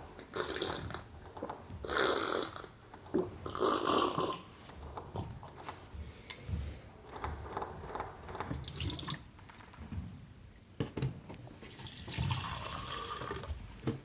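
Water running or pouring in short bursts, three in the first few seconds and a longer one near the end.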